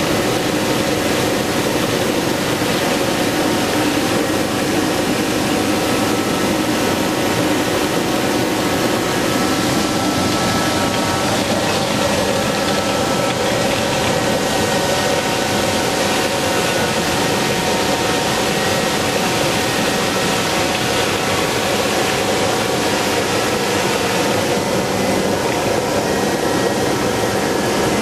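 Ice edger running steadily, its cutting head shaving ice at deep cutting depth, the setting used when the ice surface has grown too thick along the edges.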